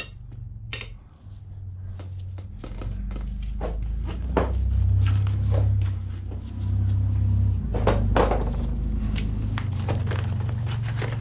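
Steel tire irons clicking, knocking and scraping against a motorcycle wheel rim as the tire bead is levered over the rim edge, with a few sharper metal strikes about eight seconds in. A low rumble rises and falls underneath.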